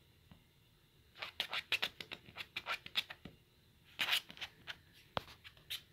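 A small dog scratching and tugging at a plush toy on a fabric blanket: quick scratching and rustling of claws and fabric in two flurries, the first about a second in and a second shorter one around four seconds in.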